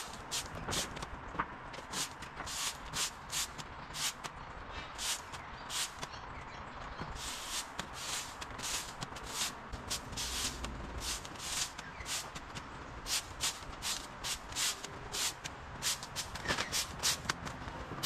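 A stiff-bristled broom sweeping dirt and leaf litter across concrete: a run of short, brisk swishing strokes, about two a second.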